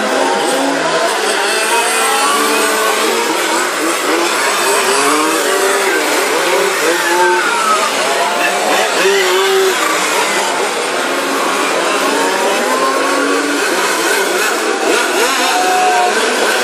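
Several large-scale radio-controlled Formula 1 cars racing together, their small two-stroke petrol engines buzzing at once, each pitch rising and falling as the cars accelerate down the straights and ease off into the corners.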